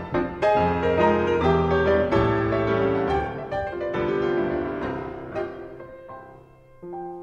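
Piano music: struck chords and a melody that fade away about six seconds in, then a new, quieter piano phrase begins near the end.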